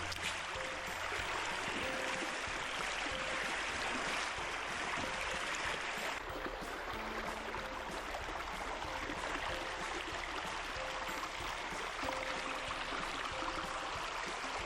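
Steady rushing of stream water, with faint background music notes.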